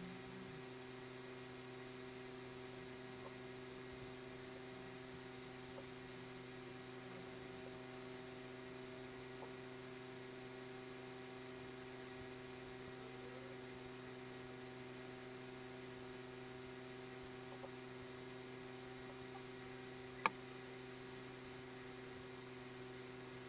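Steady low electrical hum, with one sharp click about twenty seconds in.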